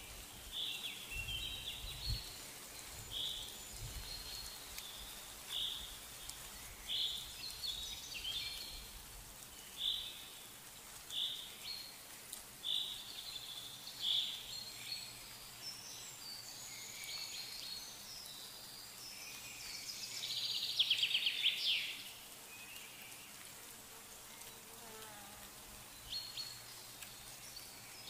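Outdoor animal calls: a short high chirp repeating about once a second, and a louder, rapid buzzing trill lasting about two seconds a little past the middle, insect-like.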